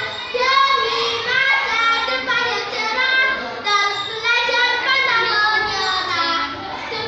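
A girl's voice declaiming loudly in a sing-song, chanting delivery, drawing out her vowels on held pitches.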